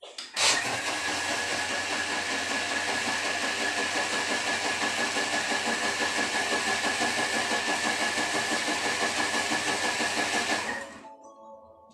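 Thermomix TM6 motor blending hot tea, fresh milk and condensed milk at speed 8 for about ten seconds to froth teh tarik: a loud, steady motor whine with liquid churning in the jug. It starts abruptly and winds down near the end.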